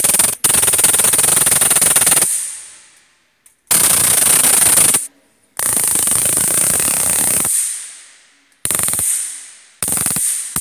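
Flashlight-type stun gun arcing across the electrodes on its head: a loud, rapid electric crackle, fired in about six bursts lasting from half a second to two seconds, each starting abruptly.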